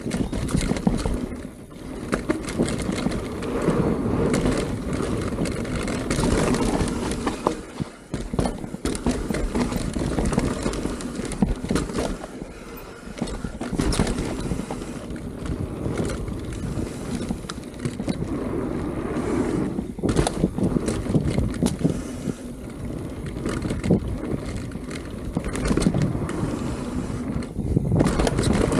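Mountain bike riding down a dirt flow trail: tyres rolling over the dirt in a steady rumble, with many sharp rattles and knocks from the bike over bumps. The rumble swells and eases every few seconds.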